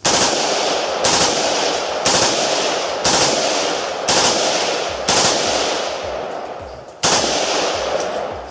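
Sterling SAR-80 5.56 mm rifle fired on semi-automatic: seven single shots about a second apart, with a longer pause before the last. Each shot trails off in a long echo.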